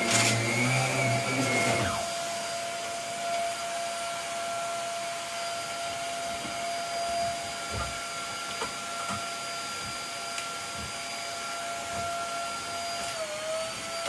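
Upright bagless vacuum cleaner running with a steady high whine. A deeper rumble from working the bedding drops away about two seconds in, leaving the motor running on its own, and the motor's pitch dips briefly near the end. A few soft thuds come in the middle.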